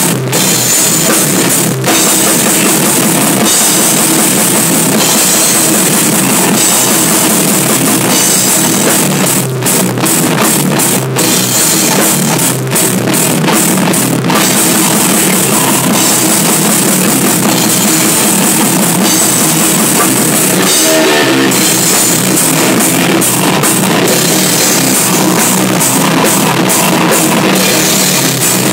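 Heavy metal band playing loud: distorted electric guitar, electric bass and a drum kit with bass drum and cymbals, with a few brief stop-start breaks between about nine and fourteen seconds in.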